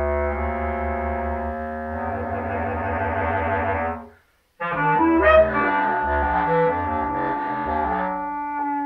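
A bass clarinet and a contrabass clarinet playing together: long held notes over a deep sustained low line, then a sudden cut to silence for about half a second, then a busier passage of quickly changing notes.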